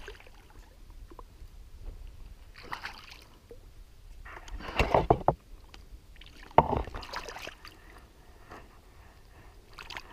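A hooked rainbow trout splashing and thrashing in shallow water as it is drawn to shore, in several separate bursts of splashing, the loudest about five seconds in.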